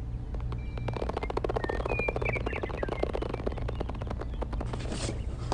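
Rapid run of small clicks, about twenty a second for some four seconds, from the plastic gears and belt of a miniature handmade winch being handled, over a steady low hum.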